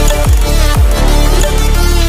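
Electronic dance music in a dubstep style, with deep bass hits that drop in pitch about twice a second over a steady beat.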